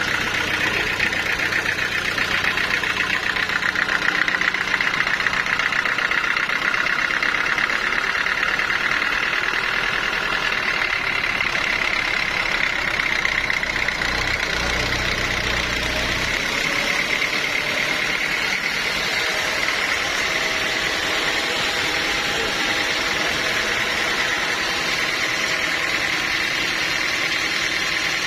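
Bandsaw mill running steadily: a continuous high whine over a low rumble that swells briefly about halfway through.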